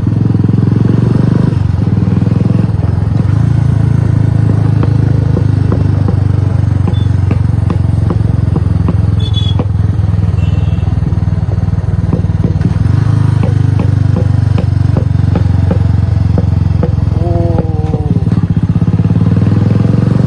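Royal Enfield Classic 350's single-cylinder engine running through an aftermarket exhaust while being ridden, a steady, deep, bassy thumping beat.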